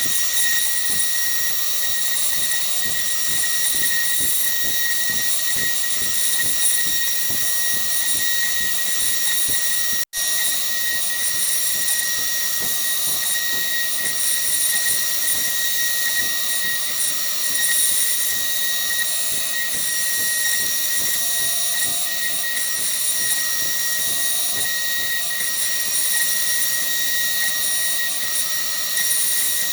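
Millright Mega V CNC router's spindle running with a steady high whine while the bit carves a 3D relief into wood. The sound drops out for an instant about ten seconds in, then carries on unchanged.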